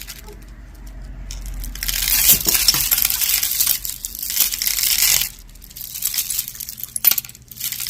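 Costume jewelry and loose beads being handled and rummaged through: small metal and glass pieces clinking and rattling against each other. The sound is densest from about two to five seconds in, with a few sharp clicks near the end.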